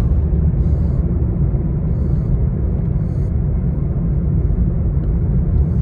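Steady, loud road and engine rumble inside the cabin of a moving car.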